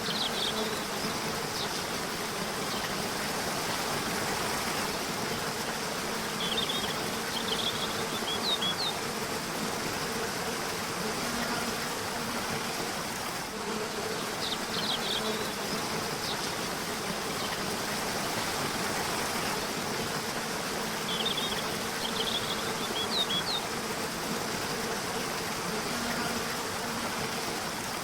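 Steady rush of river water, with short clusters of high bird chirps about every seven seconds and a low buzz coming and going beneath, the same pattern repeating about every fourteen seconds as in a loop.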